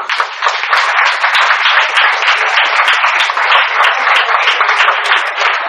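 Audience applause, with many hands clapping steadily and loudly.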